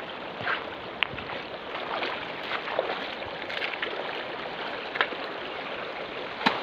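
Steady outdoor rushing noise, with a few faint clicks and knocks scattered through it.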